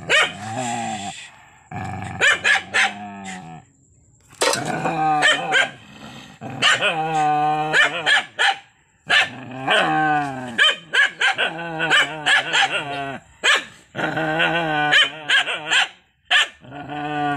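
An angry dog voicing long, wavering growling calls, broken up by short sharp barks, with a couple of brief pauses.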